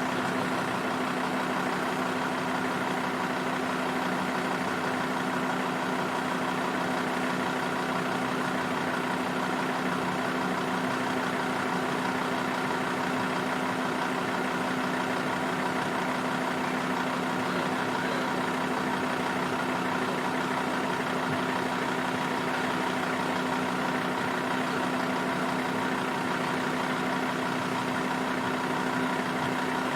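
Car engine running at a steady, unchanging speed, a constant hum with no revving.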